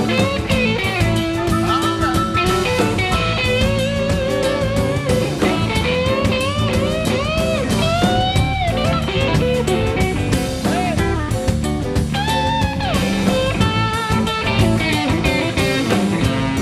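Live blues band playing an instrumental break: an electric guitar plays a lead line full of bent notes over a steady beat from a cajon and a second guitar.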